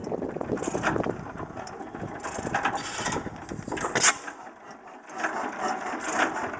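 12 hp Domestic Type A antique stationary gas engine running, with its heavy flywheels turning, and irregular sharp clicks and firing beats over a steady mechanical noise. The sound drops quieter for about a second a little past halfway, then picks up again.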